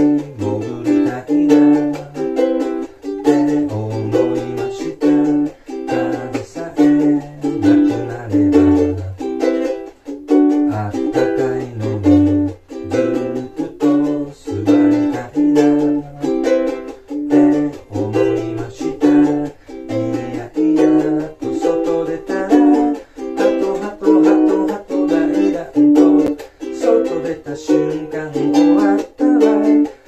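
Ukulele strummed in a steady, even rhythm, chords changing every second or so, with a low bass line moving underneath.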